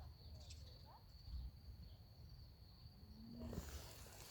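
Near silence: quiet outdoor ambience with a steady thin high-pitched tone, a few faint chirps, and a low rumble of wind on the microphone.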